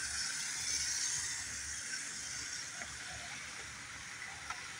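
Model train of F7 diesel locomotives and coal hoppers running along the track: a steady whirring hiss of motors and wheels on the rails, with a sharp click about four and a half seconds in.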